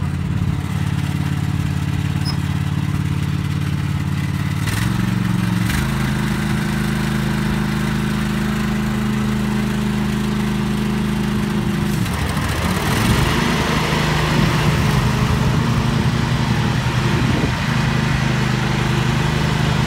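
Riding lawn mower engine running steadily. Its note shifts to a new pitch about five seconds in, goes rough for about a second around twelve seconds, then settles again with more hiss on top.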